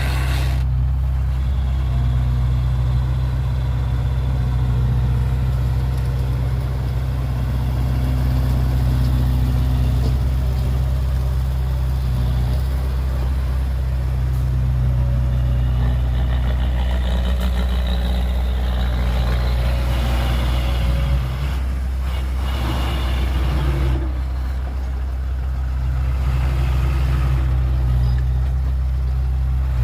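Heavy diesel engine of earthmoving machinery running steadily, a deep low drone, with a brief dip in level about two-thirds of the way through.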